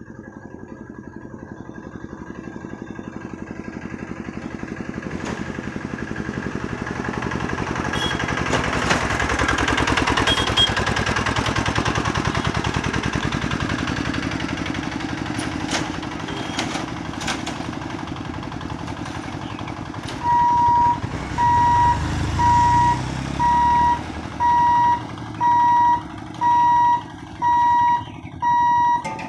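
A small motorised cart's engine running, growing louder to a peak about ten seconds in and then fading as it crosses. From about twenty seconds in, the level-crossing warning sounds: a steady electronic beep, about one a second, while the gate booms are lowered.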